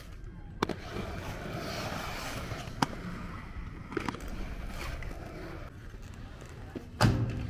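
Inline skate wheels rolling on concrete with a steady hiss, broken by several sharp clacks of skates landing on the concrete. The loudest clack comes near the end.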